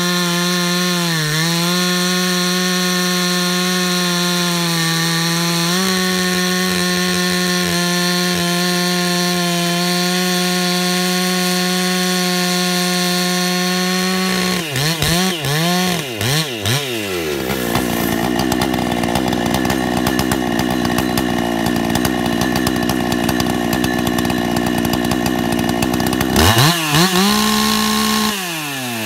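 Finger-ported Husqvarna 288XP chainsaw with a Walbro carburettor, running at full throttle and cutting through a large log. The engine note holds steady for about the first half, swings up and down several times, turns harsher and noisier, then briefly revs high and steady before dropping away near the end.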